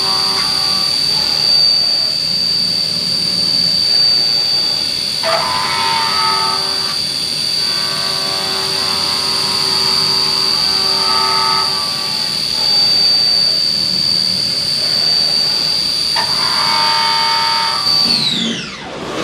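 A CNC milling machine's spindle whines at a steady high pitch while an end mill makes a roughing pass through a bronze feed-nut blank under coolant. A ringing cutting squeal comes and goes three times as the cutter bites. Near the end the whine falls steeply as the spindle winds down after the last pass.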